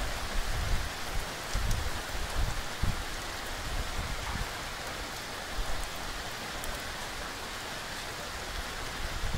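Steady rain falling, an even hiss of drops on the surfaces below, with a few brief low rumbles in the first three seconds.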